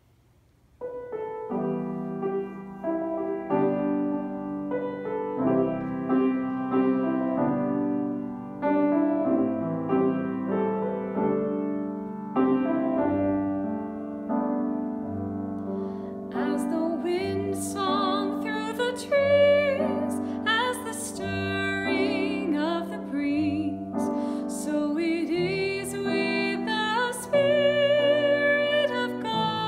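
Piano playing a slow introduction, joined by a singing voice with vibrato a little past halfway.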